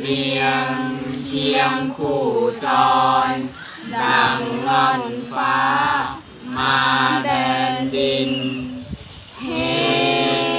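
A small group of young male and female voices chanting Thai kap he ruea (royal barge-procession verse) together in unison, without accompaniment. The chant goes in long, held, melodic phrases with short breaks for breath.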